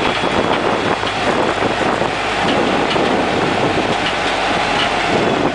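Open-air tram running along a road, its rumble mixed with wind buffeting the microphone.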